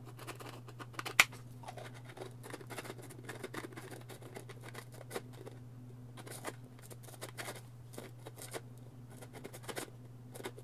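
3D-printed plastic maze puzzle box being twisted and pushed together, giving irregular small clicks and scrapes as the lid's pegs slide along the maze grooves, with one sharper click about a second in.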